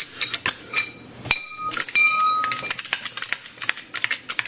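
Metallic clicking and clinking of the jack being set and raised under the car's rear suspension arm, with a short metal ring about a second and a half in and quick repeated clicks afterwards.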